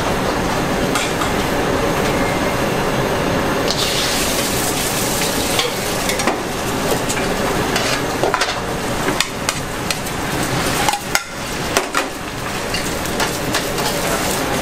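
Food frying in a wok over a gas burner: a steady sizzle that turns into a much louder, hissier sizzle about four seconds in, as liquid hits the hot wok and steam rises. A metal spatula clinks and scrapes against the wok throughout.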